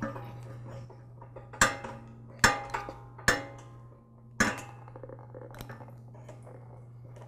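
Pliers clinking against metal parts of a tiller engine: several sharp metallic clicks, each ringing briefly, in the first half, over a steady low hum.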